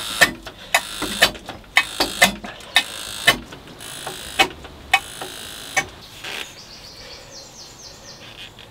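Hand-operated sump pump on a Beta Marine narrowboat diesel being worked by hand, clicking with each stroke about twice a second as the old engine oil is pumped out of the sump. The strokes slow and stop about six seconds in.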